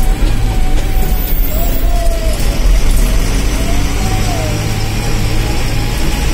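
Steady low engine and road rumble heard from inside a moving vehicle's cab. A fainter wavering tone rises and falls over it several times.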